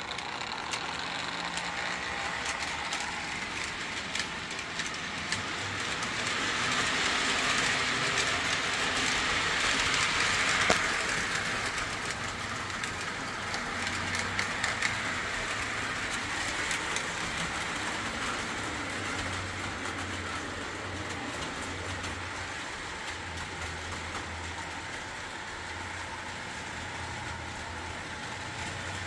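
Post-war Lionel O gauge locomotive with a Pullmor motor running on three-rail track at low track voltage, around 7 volts from a Variac: motor hum with wheels clicking over the rails. It gets louder from about six to eleven seconds in, with one sharp click near eleven seconds, then runs steadily and a little quieter.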